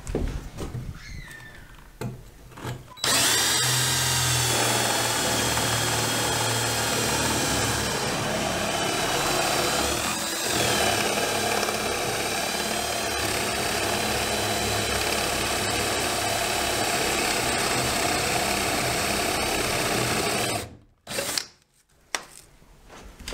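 Power drill boring a hole through a wooden wall stud for an electrical wire run. It starts about three seconds in, runs steadily with a brief dip in pitch partway through as it loads in the wood, and stops suddenly near the end.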